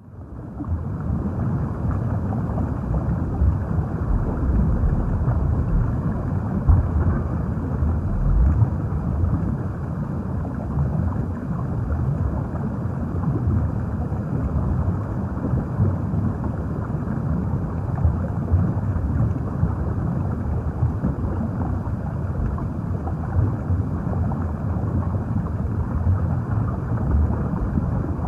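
Underwater ambience: a steady, muffled low rumble of water noise with no distinct events.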